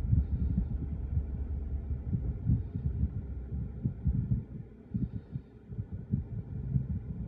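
Low rumble and irregular dull thumping of a passing freight train, a JR Freight EH500 electric locomotive hauling Koki 100-series container wagons; a steady low hum under it drops away about two seconds in.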